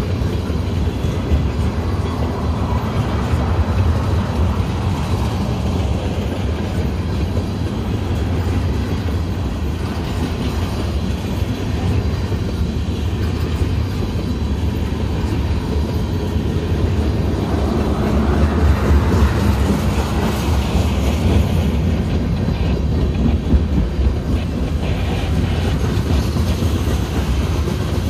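Union Pacific freight cars, tank cars then covered hoppers, rolling slowly past with a steady low rumble. The wheels clack over the rail joints and the diamond crossing, and the clacks come more often in the last few seconds.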